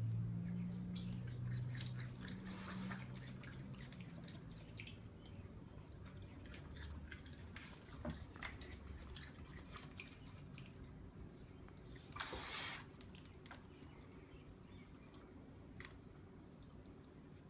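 Raccoon dabbling its paws in a plastic bowl of water: small splashes, drips and clicks of water and plastic as it handles watermelon pieces. A low hum runs through the first few seconds, and a brief louder rush of noise comes about twelve seconds in.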